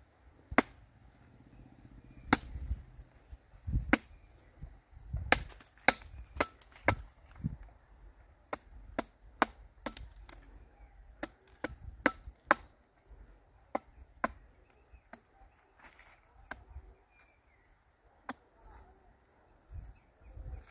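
A curved sickle blade chopping into the green husk of a tender coconut to open it for drinking: a couple of dozen sharp chops, irregularly spaced, often several in quick succession.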